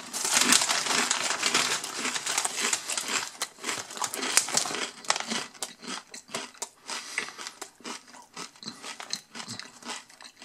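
A foil-lined bag of potato chips crinkling loudly as a hand rummages in it for chips. Through the second half come fainter scattered crackles and crunches.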